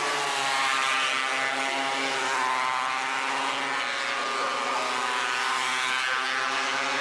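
Several 270cc micro sprint car engines racing around the oval, their overlapping notes rising and falling in pitch as the cars pass and go through the turns.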